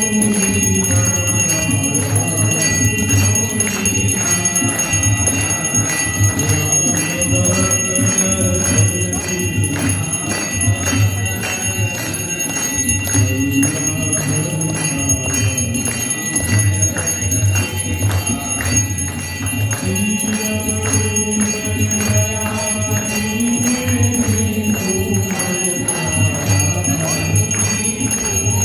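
Hand-rung temple bells ringing continuously during a Hindu aarti, over the aarti music with a steady low beat and a slowly rising and falling melody.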